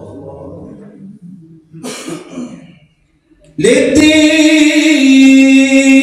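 Unaccompanied male devotional singing of Sufi prophetic praise (madih), amplified through a microphone. A cough breaks in about two seconds in, and after a short pause the chant comes back in loud at about three and a half seconds with a long-held note.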